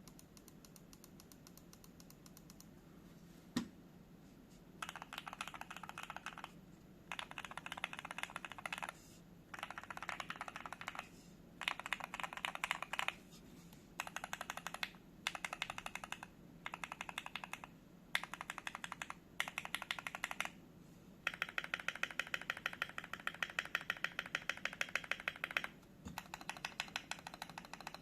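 Keychron Q3 mechanical keyboard with lubed and filmed Gateron Oil King linear switches being typed on: runs of rapid keystrokes a second or two long with short pauses between, and a longer unbroken run about three quarters of the way through. A single louder knock comes early, before the typing picks up.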